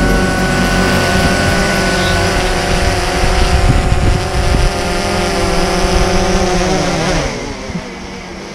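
DJI Phantom 3 Pro quadcopter hovering close overhead, its four propellers and motors whining in a steady pitched buzz. Near the end the motors spin down with a falling pitch as the drone is caught by hand.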